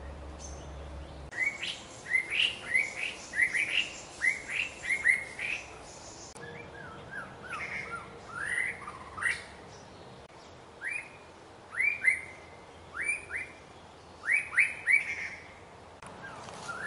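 White-rumped shama singing: a run of short, clear whistled notes, most of them quick upward or downward sweeps, delivered in phrases with a brief pause partway through.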